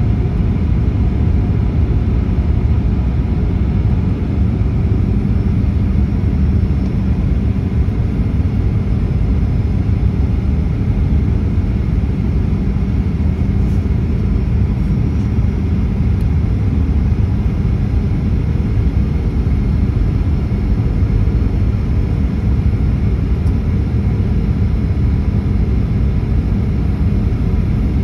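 Steady low roar of a Boeing 737's jet engines and rushing air, heard inside the passenger cabin while in flight.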